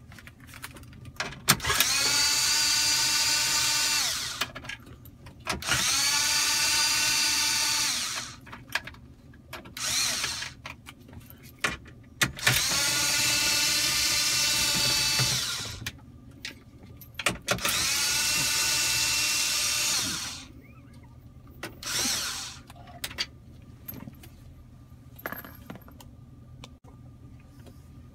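Cordless 1/4-inch screwdriver backing out four 7 mm screws in four runs of about two and a half seconds each. Each run has the motor whine rising quickly in pitch and then holding steady. Shorter blips of the driver and small clicks come between the runs.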